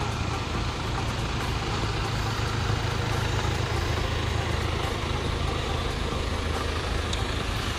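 An engine running steadily: a constant low hum under an even rushing noise.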